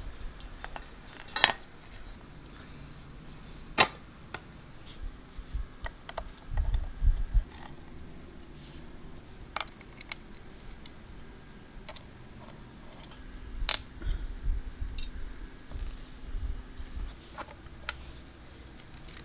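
Scattered metal clicks, clinks and knocks as turntable parts (metal plates, aluminium feet, small screws) are handled and fitted together, with a few dull bumps of the plates being set down.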